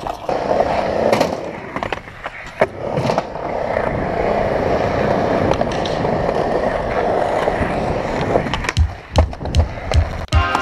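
Skateboard wheels rolling on concrete, with sharp clacks and knocks of the board a few times in the first seconds and a quick run of them near the end.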